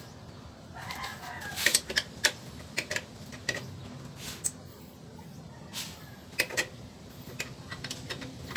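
Scattered sharp metallic clicks and knocks from hand tools and exhaust parts as an SC Project exhaust canister is fitted to its elbow pipe. A chicken calls briefly about a second in.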